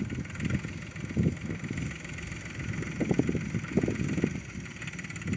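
Force Ox25 tractor's diesel engine running steadily while ploughing, with an uneven low rumble and a steady whine above it.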